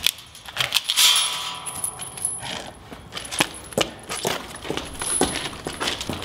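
Metal clinking and jangling: a run of sharp, irregular clinks, with a faint steady high hum beneath.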